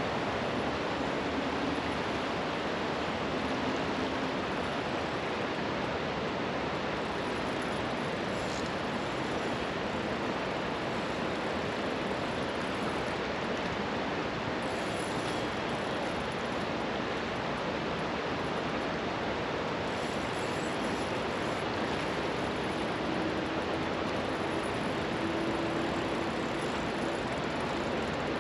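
River water rushing over a shallow, rocky stretch as a steady, even hiss. A faint low hum comes in near the start and again late on.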